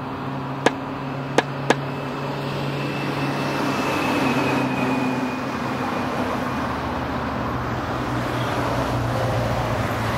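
Steady street-traffic noise, a continuous rush with a low hum underneath, with three sharp clicks in quick succession within the first two seconds.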